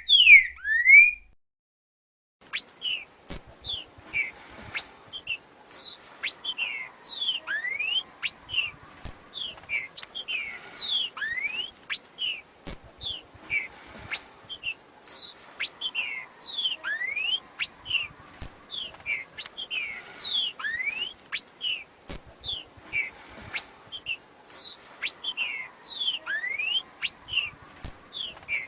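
Female green-winged saltator (trinca-ferro) giving its 'macheado', a rapid, continuous string of short, sharp, falling whistled notes mixed with rising glides. A few louder notes sound at the very start, then a short pause before the run begins.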